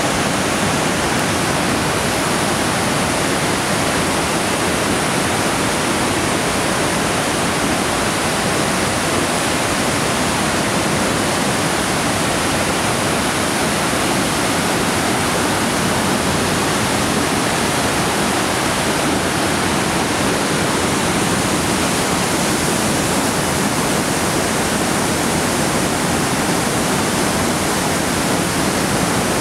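River in spate, swollen by autumn rains, rushing in whitewater through a rocky channel and pouring over a small concrete weir: a steady, unbroken rush of water.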